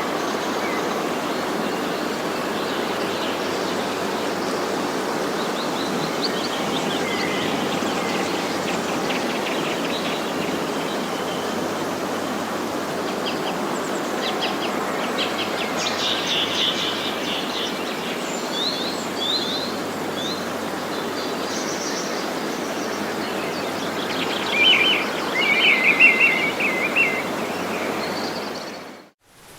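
Birds chirping and singing over a steady background rush of outdoor noise, with the loudest, quick trilling calls near the end before the recording cuts off suddenly.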